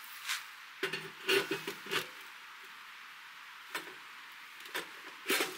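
Light metal knocks and scrapes as a G-Stove cooking pit, a metal bowl, is fitted down onto a wood stove's chimney pipe: a cluster of rattles about a second in, then a few single knocks near the end.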